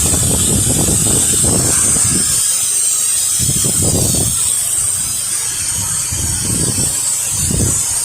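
Pressure washer spray hissing steadily as water is rinsed onto a house, with wind buffeting the microphone in irregular low gusts.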